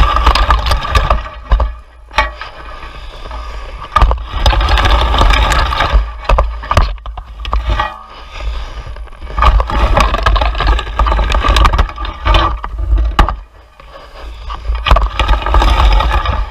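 A wire-tined garden rake dragged through dead brambles and dry undergrowth in about four loud bouts with short pauses between: scraping and rustling full of sharp twig cracks and clicks. A heavy rumble from the rake-mounted camera being shaken runs underneath.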